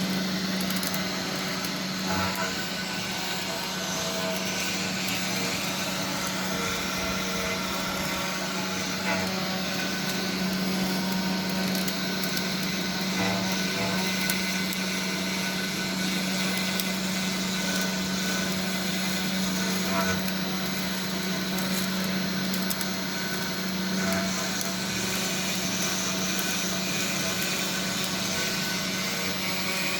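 52 mm CNC spindle motor running at a constant speed, a steady hum and whine, its own fan drawing air through a 3D-printed dust shoe. A few faint ticks come through now and then.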